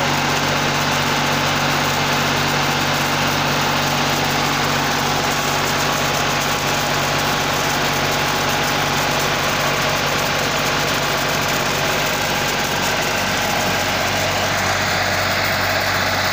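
Tractor engine running steadily at constant speed, driving the power-sprayer's pump that feeds the spray hoses, with a steady hiss over it.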